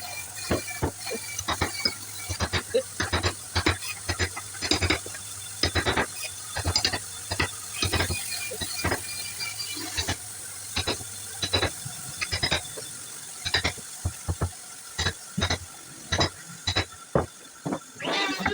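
Irregular sharp knocks and clicks, several a second, of hand tool work on wood, over a low steady hum that stops about two-thirds of the way through.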